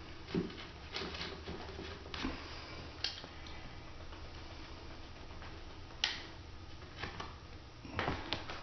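A utility knife cutting sheet vinyl flooring and the sheet being handled: scattered light clicks and short scrapes, spaced a second or more apart.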